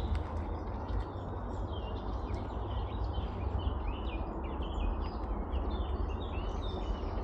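Songbirds singing, a run of many short chirps and quick whistled notes, over a steady low rumble.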